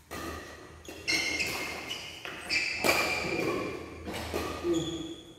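Badminton doubles rally: rackets striking the shuttlecock in sharp hits, mixed with court shoes squeaking on the court mat, in a large hall. There are several hits and squeaks, spread through the rally.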